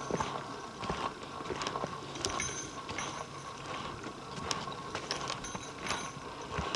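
Footsteps walking over a forest floor: irregular crunching steps, about one or two a second.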